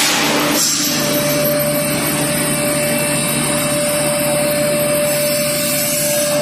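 Dry ginger grinding mill running steadily under load as it grinds ginger into powder: an even, loud machine noise with a constant whine.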